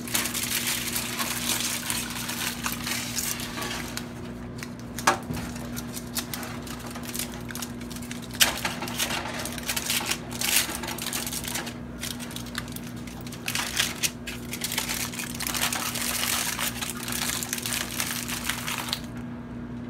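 Aluminium foil being peeled off a metal baking sheet and crumpled into a ball by hand: continuous crinkling and crackling with sharper crackles here and there, stopping about a second before the end.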